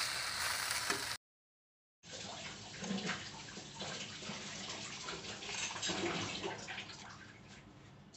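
Pasta sizzling as it is stirred in a hot kadhai, cut off abruptly about a second in. After a short silence come faint clinks and scrapes of a metal spoon scooping coffee powder into a clear plastic jar.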